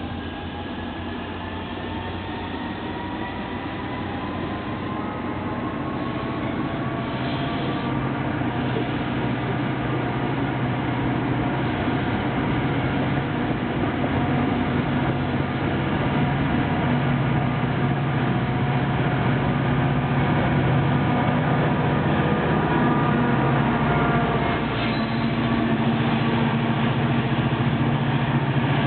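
EMD GP40PH-2B diesel locomotive, with its 16-cylinder two-stroke 645 engine, pulling away under power. A rising whine climbs over the first several seconds while the engine's low drone grows steadily louder as the train accelerates.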